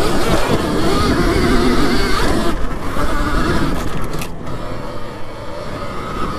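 Alta Redshift MXR electric dirt bike under way on a dirt trail: its motor whine rises and falls with the throttle over wind and tyre noise. It eases off about halfway through.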